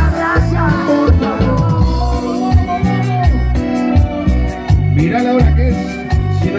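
Live band playing a Latin pop ballad with a steady bass-and-drum beat, a male voice singing over it.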